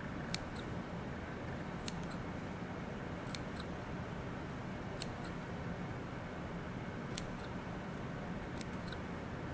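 Small dissecting scissors snipping through a narrow-clawed crayfish's tail cuticle: a sharp click about every one and a half seconds, each followed by a fainter click. A steady low hum sits underneath.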